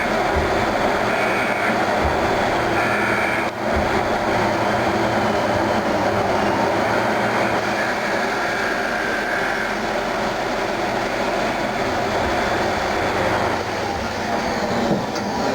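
Haas CNC lathe machining an aluminum workpiece: a loud, steady machine noise with faint higher tones coming and going, dipping briefly about three and a half seconds in.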